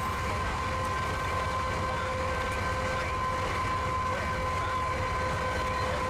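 General Electric AC44 diesel-electric locomotive hauling an intermodal train at speed, heard while pacing alongside it: a steady low rumble with a steady high whining tone over it.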